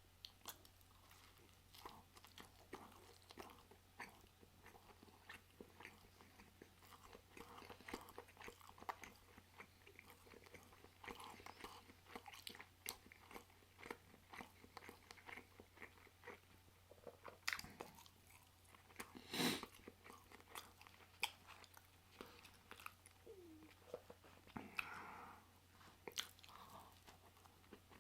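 Faint close-up chewing and wet mouth smacks of someone eating a pulled pork sandwich: irregular small clicks throughout, with one louder click about two-thirds of the way through.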